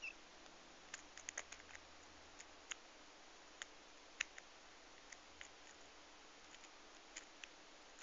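Faint, irregular small clicks of a diamond lock pick working the pin stack inside a five-pin brass barrel padlock held under tension, with a quick cluster of clicks about a second in.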